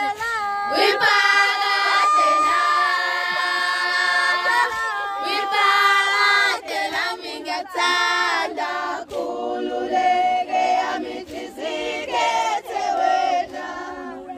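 A group of young Zulu women singing a cappella together, holding long notes, with occasional sharp clicks.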